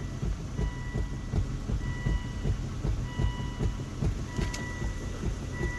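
Irregular low clunks from the front steering or suspension of a 2004 Volvo V70 as the steering wheel is worked back and forth with weight on the wheels. The noise comes only when the wheels are loaded and turned off centre, and its cause, steering or suspension, is undiagnosed. A beeping tone goes on and off over the clunks, and there is one sharp click near the end.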